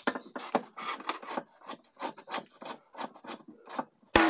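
Quick repeated scraping and rubbing of plastic against the scooter's plastic body panels as they are worked loose by hand, about five short strokes a second.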